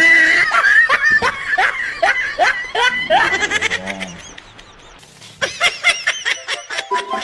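A person laughing hard in a quick, repeated "ha-ha-ha" for about three seconds, then, after a short lull, laughing again, faster.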